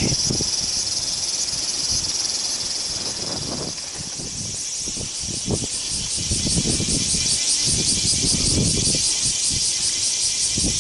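Steady high cicada chorus that turns into an even, pulsing song about four seconds in, with rustling and knocks of handling close by underneath.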